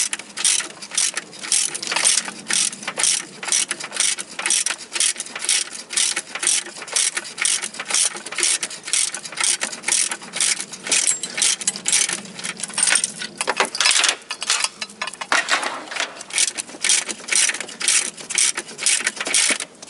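Hand ratchet wrench clicking steadily as an engine-to-gearbox joint bolt is tightened, stroke after stroke, stopping at the end.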